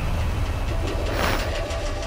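Horror trailer sound design: a deep, noisy rumble with a brief swell of hiss about a second in, under the closing title cards.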